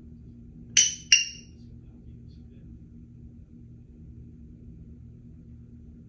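Congo African grey parrot giving two short, sharp, high notes about a third of a second apart, each with a brief ringing tail.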